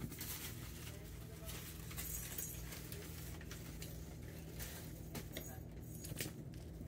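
Kittens playing on carpet: scattered soft scuffles, patters and rustles of paws and toys, over a steady low hum.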